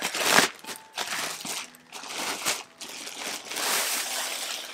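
Clear plastic garment bag crinkling in a series of bursts as a dress is handled and drawn out of it, loudest just after the start.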